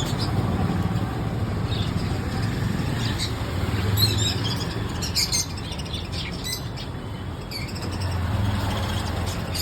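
Small birds chirping and tweeting in short scattered calls, over a steady low rumble that swells and fades.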